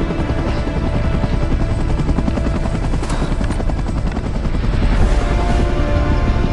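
Rotor chop of an approaching attack helicopter, a fast steady beating that grows louder about five seconds in.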